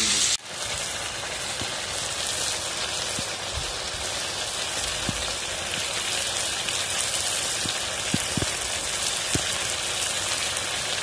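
Chicken and potatoes sizzling in a kadai over a wood fire: a steady frying hiss with a few faint pops.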